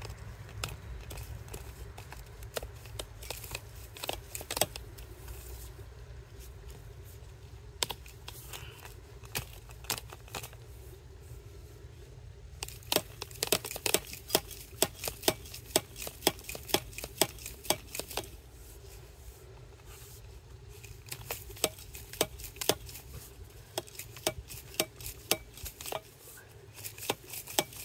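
Irregular clicks, creaks and scrapes of 3/4 inch flexible drip-irrigation tubing being twisted and pushed by hand onto a plastic T connector until it seats at the fitting's neck. They come scattered at first, then in quick clusters about halfway through and again near the end, over a steady low rumble.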